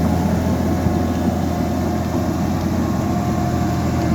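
Liebherr 754 crawler dozer's diesel engine running steadily: an even, low drone with a faint steady whine above it.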